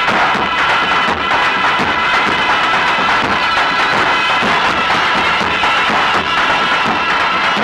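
Traditional Turkish davul and zurna music: a reed pipe playing a continuous melody over the beats of a large bass drum.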